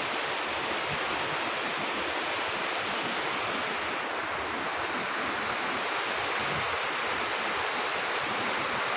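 A river rushing, a steady even wash of water.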